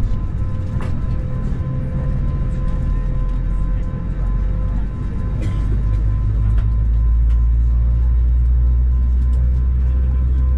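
Airliner cabin noise inside an Airbus A321neo on the ground: a steady low rumble with a faint steady hum above it, the rumble growing louder about six and a half seconds in.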